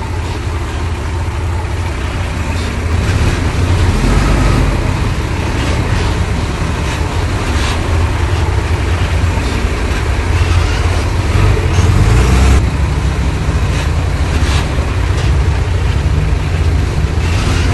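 Heavy diesel earthmoving machinery running under load, a steady low rumble with scattered clanks, getting louder a few seconds in.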